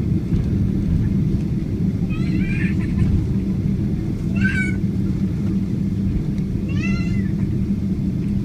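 Steady airliner cabin rumble with a low hum. Three short, high-pitched squeals that rise and fall break through it, about two, four and a half, and seven seconds in.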